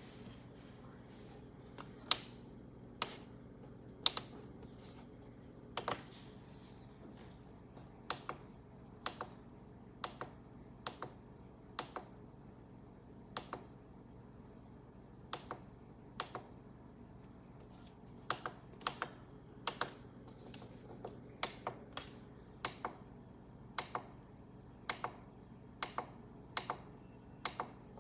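Sparse, uneven clicks of computer keys being pressed, a click or two every second or so, some in quick pairs, over a faint steady hum.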